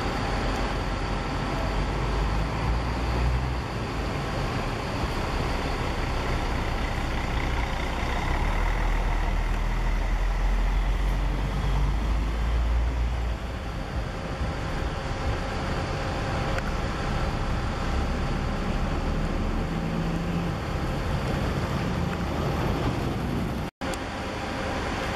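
Intercity coach's diesel engine running as the coach pulls away and drives off, a deep rumble that is strongest for the first half and then eases. The sound cuts out for an instant near the end.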